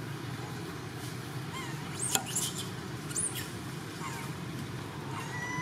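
High-pitched animal squeaks and chirps over a steady low background rumble, with two short, sharp squeals about two and three seconds in.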